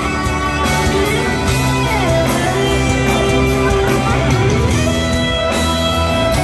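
Live rock band playing a slow song, an electric guitar carrying the melody with held and bent notes over bass and drums, heard through a phone's microphone in the crowd.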